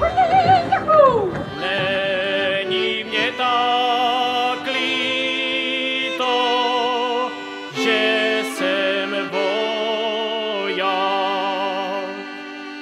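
Male voices singing a Moravian verbuňk song in folk style, with held notes and strong vibrato. It opens with a shouted whoop that falls in pitch, and a string band plays behind the voices.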